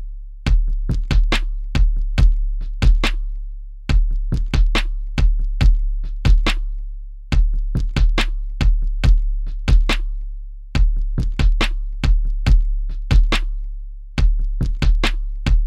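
Electronic drum-machine beat: sharp, clicky hits over a deep, long-held bass kick. The same short pattern repeats about every three and a half seconds.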